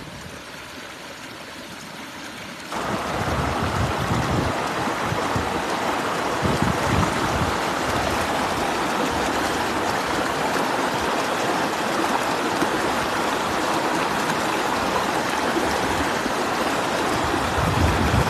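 Rushing river rapids: white water churning over rocks, a steady loud hiss that suddenly gets louder a little under three seconds in.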